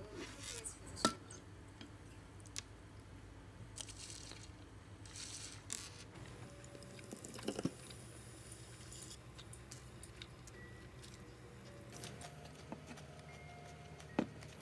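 Metal fork and spoon clinking against a ceramic plate and bowl during a meal, a few sharp clicks spread through, with soft chewing of crunchy breaded fried shrimp.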